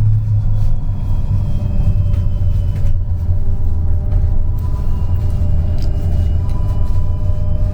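Trolleybus in motion, heard from inside: a steady low rumble from the running gear and road, with the thin whine of the electric traction drive on top, rising slightly in pitch about halfway through as it picks up speed.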